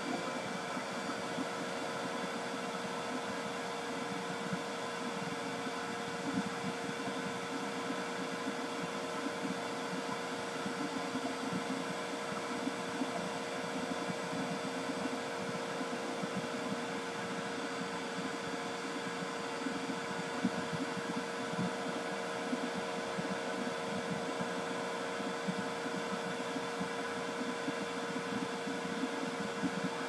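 Steady machine drone: an even hiss with a constant hum tone, unchanging throughout, with small irregular crackles on top.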